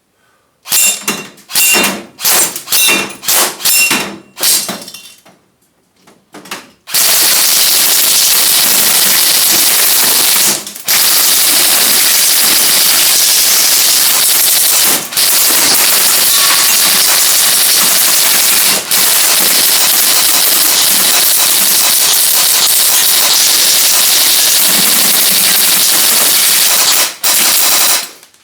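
Gas-powered airsoft gun firing on full auto: several short bursts in the first six seconds, then long, nearly unbroken strings of fire with a few brief pauses.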